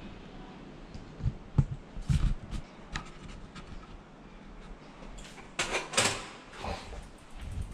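Bicycle being turned and wheeled across a tiled floor: scattered clicks and knocks, then a few brief scuffing noises about six seconds in.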